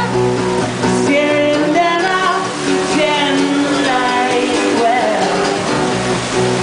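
Solo acoustic performance: a man singing into a microphone while strumming an acoustic guitar.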